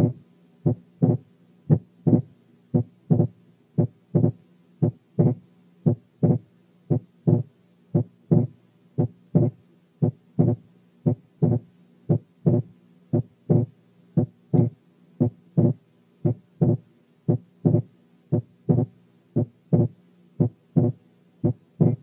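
Recorded human heart sounds at about one beat a second, each a first sound followed by a second sound that stays split through both inspiration and expiration, the split varying between narrow and wide. This persistent splitting of the second heart sound is the kind heard in right bundle branch block. A low steady hum lies beneath.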